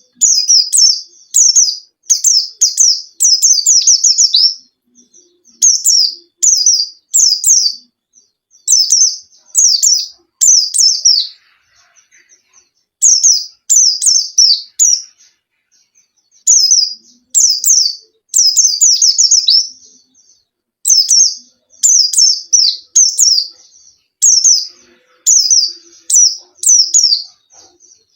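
Pleci (white-eye, Zosterops) singing gacor: fast runs of high, sharp chirps that each sweep downward, grouped in bursts of a second or two with short pauses between.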